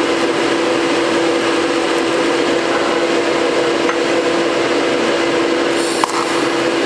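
TIG welding a cap onto a piece of square steel tube: the arc's steady hiss over a constant hum.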